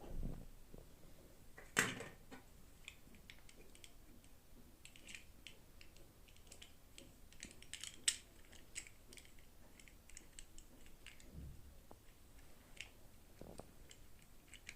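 Hands handling and unwrapping plastic toy packaging: a soft bump at the start, a sharp click about two seconds in, then a run of small clicks and crinkles, and a few more near the end.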